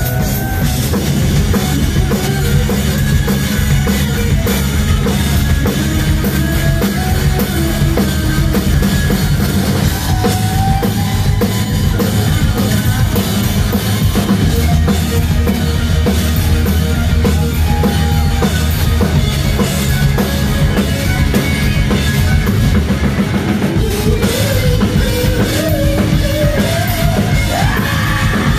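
Live hard rock band playing loud: a drum kit pounding steadily under electric guitar and bass, with a guitar melody line on top.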